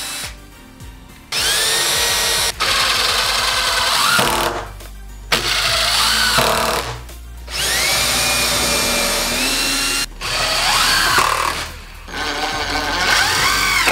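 Ridgid 18 V cordless drill run in about five separate trigger pulls, drilling a pilot hole and driving screws into a pine 2x4. Each time, the motor whine rises in pitch as it spins up, holds steady and then stops abruptly.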